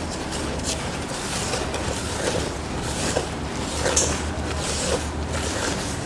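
Gloved hand mixing flour, salt and water into play dough in a plastic bowl: soft scratchy rustling and squishing now and then, over a steady low hum.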